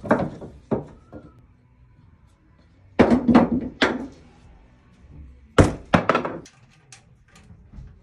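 Sharp knocks and thuds in three bunches: near the start, about three seconds in, and again about six seconds in.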